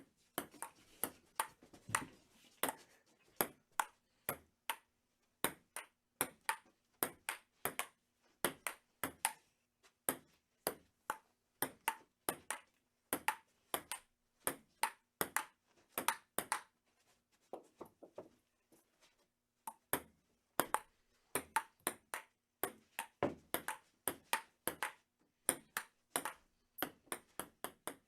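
Table tennis rally: a celluloid ping-pong ball clicking off paddles and the table about twice a second, with a short lull near the middle.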